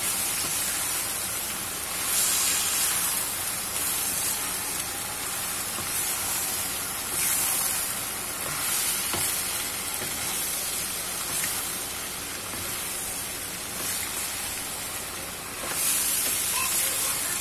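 Julienned chayote and carrots with chicken sizzling in a hot pan as they are stir-fried with a spatula, the hiss swelling now and again as the vegetables are turned.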